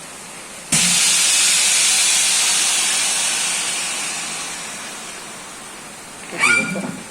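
Hualian chamber vacuum sealer venting at the end of its cycle: a sudden loud hiss of air rushing back into the chamber, tapering off slowly as the pressure equalises. A short clatter near the end.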